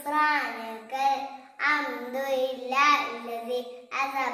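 A young girl's voice chanting an Arabic dua (supplication) from memory in a sing-song recitation, in short rising and falling phrases.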